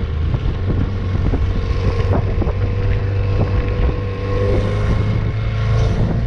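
Small boat's outboard motor running at a steady speed, with wind buffeting the microphone and waves knocking against the hull now and then.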